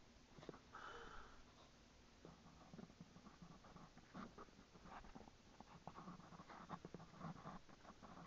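Near silence: faint room tone with scattered soft clicks and rustles.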